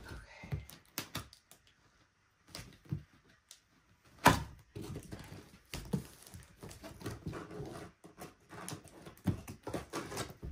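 Large cardboard box being handled and opened by hand: irregular taps and knocks on the cardboard with scraping and rustling of the packaging, and one loud knock about four seconds in.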